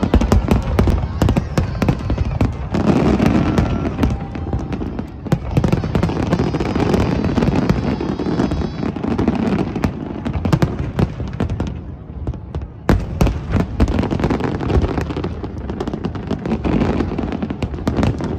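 Aerial fireworks shells bursting in a rapid, continuous barrage of bangs and crackles over a deep rumble, thinning briefly about twelve seconds in before picking up again.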